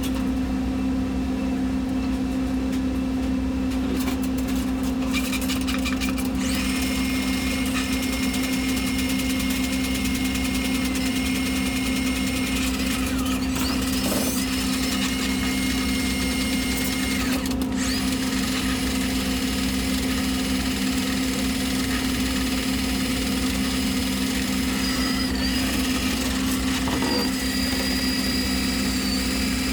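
A small electric motor running in long steady stretches, with a high whine that starts a few seconds in and breaks off briefly twice near the middle, over a constant low machinery hum.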